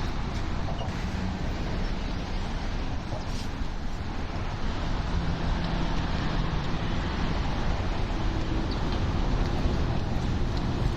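City street traffic: a steady wash of car and bus engines and tyres, with an engine hum coming up about halfway through.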